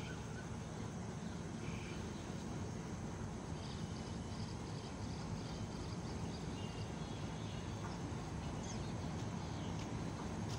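Steady low rumble of a distant approaching passenger train, with birds and insects chirping over it.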